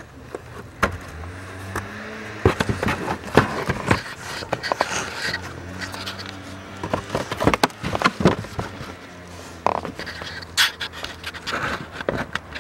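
Irregular clicks, knocks and scraping of plastic parts under the dashboard as the wiring connector of the heater-flap actuator motor is worked loose by hand, mixed with rubbing and knocking of the handheld camera, over a steady low hum.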